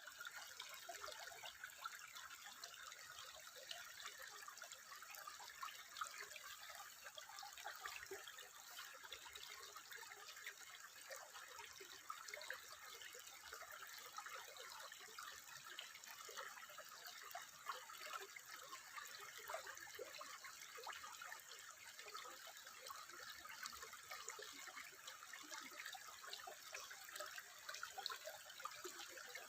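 Water trickling and splashing steadily, a dense patter of small droplet and bubbling sounds.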